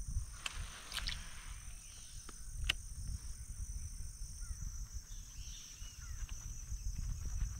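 Quiet outdoor ambience by the water: a steady high insect drone with a few faint bird chirps a little past halfway. Also a few sharp clicks in the first three seconds and a low rumble throughout.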